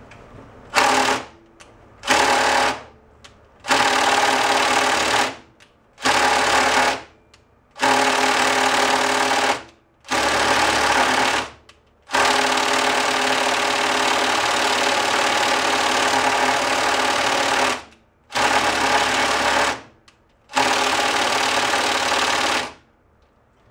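Cordless impact driver hammering on a pulley's tight Allen set screws in nine bursts, one long run of about six seconds in the middle, stopping and starting as it tries to break them loose. The screws are stuck with rust.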